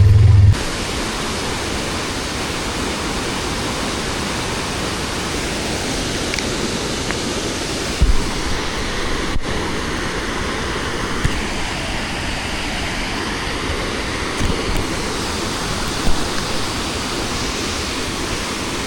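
Waterfall: a steady rush of falling water, with a few faint knocks. A loud low hum stops about half a second in.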